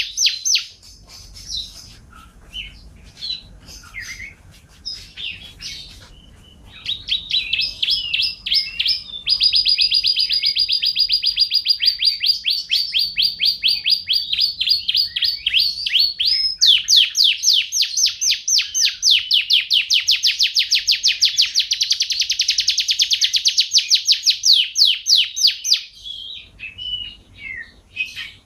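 Domestic canary singing: scattered short high notes for the first few seconds, then long fast trills of rapidly repeated notes, one running about seven seconds, and after a brief break another louder one of about nine seconds, ending in scattered notes again.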